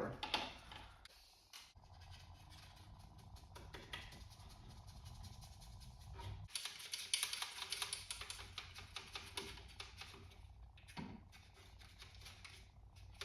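Faint, quick scratchy strokes of a paintbrush working paint onto a plastic model, busiest around the middle, over a steady low hum.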